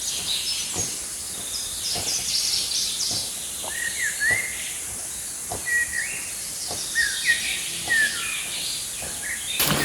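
Small birds chirping in short calls, several coming in quick pairs, over a steady high hiss. Light clicks and taps are scattered throughout.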